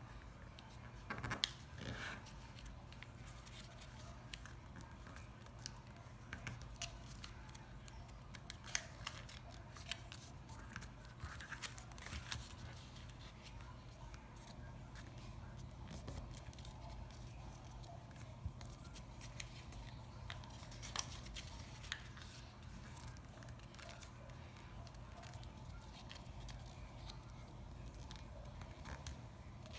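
Square of origami paper being folded by hand: faint, scattered crinkles and creasing clicks as its flaps are opened and pressed flat, over a low steady hum.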